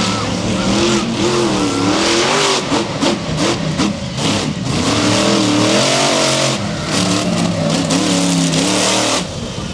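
Monster truck engine revving hard, its pitch swinging up and down repeatedly as the driver works the throttle over dirt, with a rattle of sharp clatters a few seconds in; the engine drops off shortly before the end.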